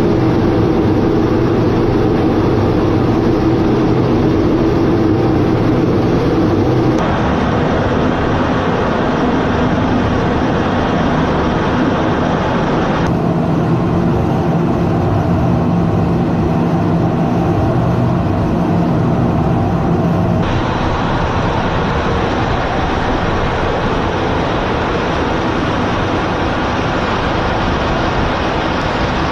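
Steady cockpit noise of a fighter jet in flight: the constant rush of engine and airflow. Its tone changes abruptly about 7, 13 and 20 seconds in.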